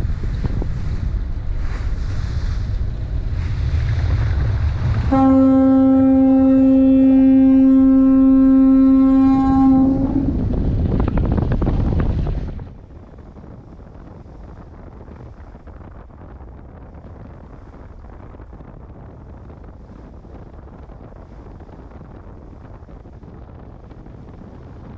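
Wind buffeting the microphone on a ship's open deck, with the ship's horn sounding one long, steady blast of about five seconds, starting some five seconds in. About halfway through the wind noise drops away abruptly, leaving a quieter steady rush.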